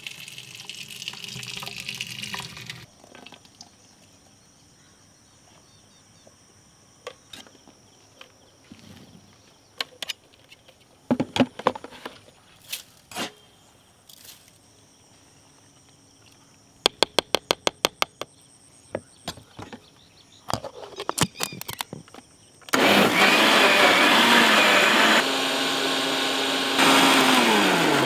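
Thick strawberry milkshake pouring from a blender jar into a large aluminium pot, then scattered clicks and knocks as sugar is spooned onto cut strawberries in the jar. About three-quarters of the way in, an electric blender starts and runs loud, blending the strawberries and sugar into a shake, and near the end its motor winds down with a falling whine.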